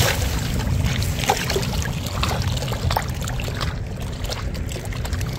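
Shallow lake water splashing and sloshing against a wet carp sling as a carp is released back into the water, with many small irregular splashes.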